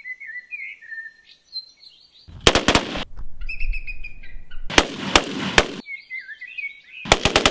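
AR-15-type rifle fired rapidly through a Gat Crank trigger crank: three quick strings of shots, starting about two, four and a half and seven seconds in. Birds sing before and between the strings.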